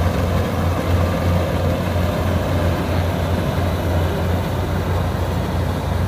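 Kubota DC95GM combine harvester running steadily while cutting rice, a constant low engine hum.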